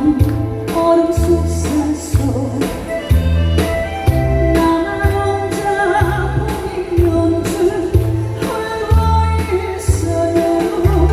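A Korean pop ballad sung by a woman over a band backing with a steady bass pulse.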